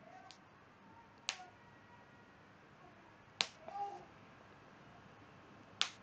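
Three sharp clicks about two seconds apart over faint room noise, with a softer click just after the start.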